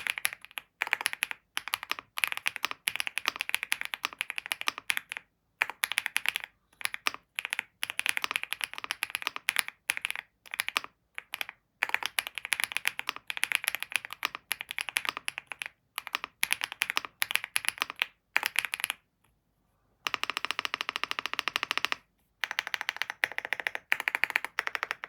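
WOB Rainy 75 mechanical keyboard being typed on quickly: runs of crisp key clicks in bursts with brief pauses, and a short silent break about three quarters of the way through.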